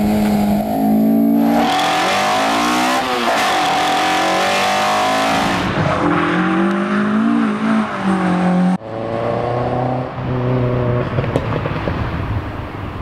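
Toyota AE86's 4A-GE four-cylinder engine revving up and down hard during drift runs, with tyre squeal over it for a few seconds early on. The sound cuts abruptly about nine seconds in to another run, the engine running at a lower, steadier pitch.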